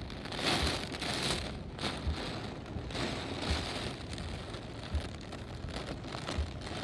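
Typhoon rain and wind: a steady hiss of rain swelling in gusty surges, with soft low thumps recurring about every one and a half seconds.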